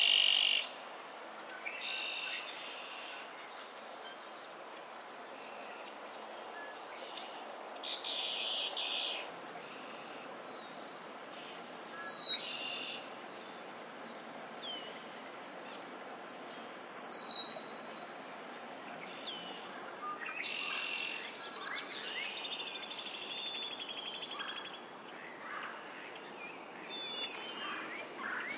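Several marsh songbirds singing and calling in a spring swamp chorus over a steady background hiss. Short buzzy songs of about a second each come early on. Two loud calls that slide down in pitch, about five seconds apart, are the loudest sounds, and a long run of quick varied notes follows later.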